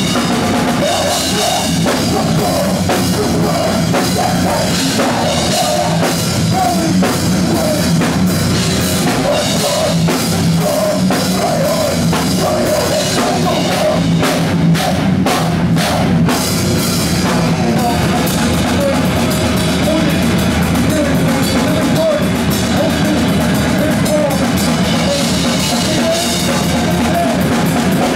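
Live rock band playing loudly, the drum kit prominent, with a run of sharp hits about halfway through.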